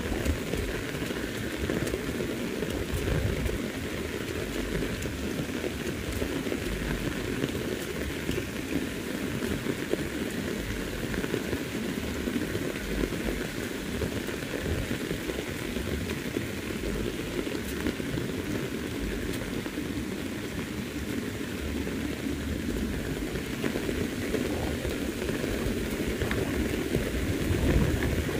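Heavy rain falling steadily, a dense even hiss and patter of drops with no let-up.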